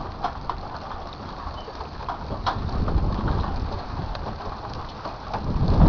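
Wind rumbling on the microphone outdoors, with scattered faint clicks and taps.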